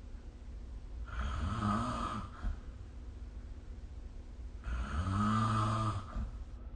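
A person snoring: two long snores about three and a half seconds apart, each a low-pitched drone with breath noise, one about a second in and one about halfway through.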